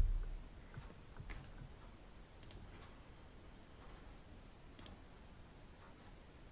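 Computer mouse clicks: two sharp clicks about two and a half seconds apart, with a few fainter clicks and a brief low thump near the start, over quiet room tone.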